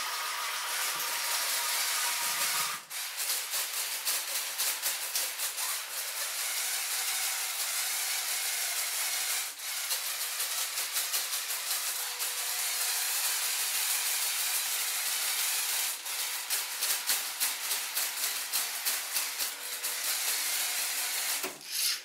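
Lego robot's motorised mechanisms running: a steady hissing whir with fast fine ticking, dipping briefly three times.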